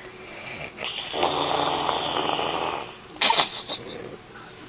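A woman snoring in her sleep: one long, heavy exhale lasting about two seconds, followed near the end by a few sharp pops in quick succession.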